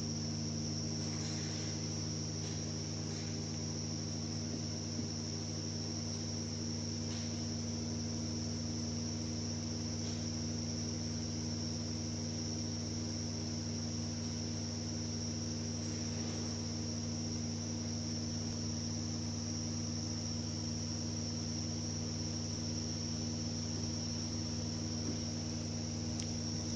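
Subaru Outback five-speed manual gearbox running, with a steady high-pitched whine over a low steady hum: the sign of a worn input bearing in the gearbox's dual-range reduction unit.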